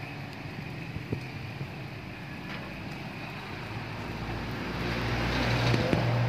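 A motor vehicle's engine running nearby, a steady low hum that grows louder over the last couple of seconds.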